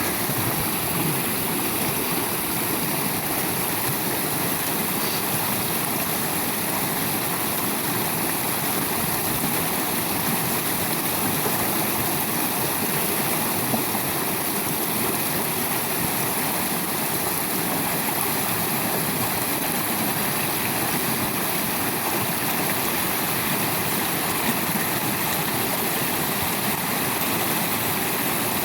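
Shallow, fast-flowing river rushing over rocks: a steady, unbroken water noise.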